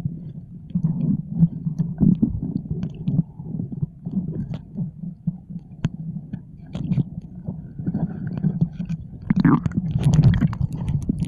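Muffled underwater sound picked up by a submerged camera: a low churning rumble of moving water with scattered small clicks and knocks, swelling louder near the end.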